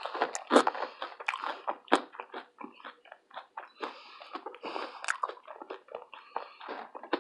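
A person chewing food close to the microphone: many quick, irregular crunches and wet mouth clicks.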